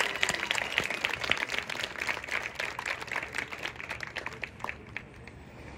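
Audience applause from the stands, dense clapping that thins out and dies away over about five seconds.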